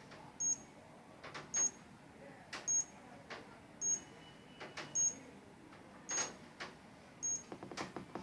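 Securico wireless alarm panel giving short, high-pitched beeps about once a second, seven in a row, while it shows a zone open. Soft clicks and rustles of handling come between the beeps.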